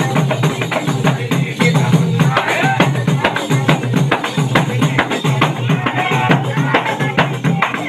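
Several hand-struck frame drums (daf) beaten together in a steady, quick rhythm, with men's voices chanting along over the drumming.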